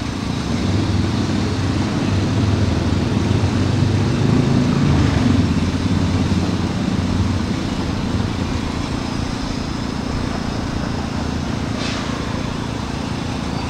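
An engine running steadily with a low drone, swelling from about a second in and easing back after about six seconds, with one sharp click about twelve seconds in.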